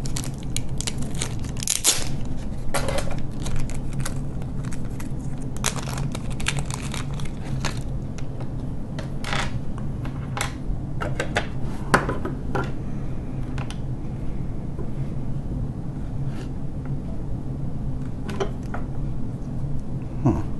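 Small clear plastic packet crinkling and tearing, with scattered light clicks and taps as tiny heat sinks are unpacked and handled on a wooden table, over a steady low hum.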